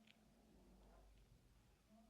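Near silence with a few faint clicks from ear-cleaning tools working close to the microphone.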